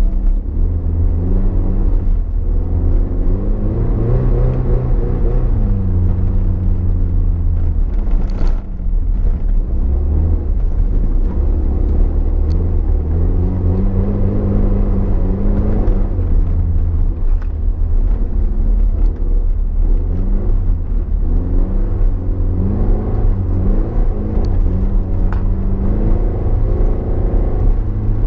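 Toyota MR2's mid-mounted engine heard from inside the cabin while driving, its revs climbing and falling again and again. A single sharp knock comes about eight seconds in.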